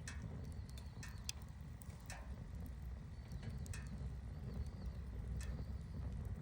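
Wood campfire crackling: sharp, irregular pops and snaps, roughly one a second, over a steady low rumble.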